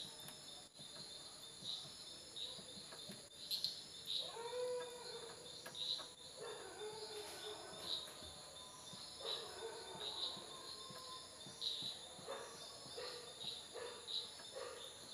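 Crickets chirping at a slow, regular pace, about once a second, with a few faint wavering whines of about a second each over them.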